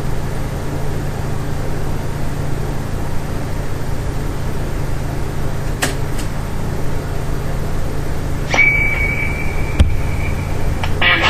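Westinghouse Portatape reel-to-reel tape recorder playing back its own recording: a steady hum and hiss, then about eight and a half seconds in a high-pitched steady squeal sets in, with a louder, shriller squeal starting near the end. The squeal is a fault in how the machine recorded, loud enough to bury the song on the tape.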